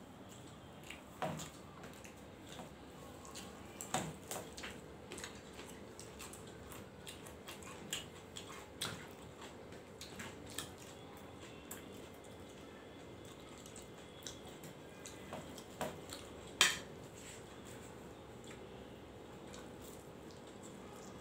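Scattered light clinks and knocks of hands and food on stainless steel plates and bowls as two people eat rice and curry by hand, the loudest knock about three-quarters of the way through.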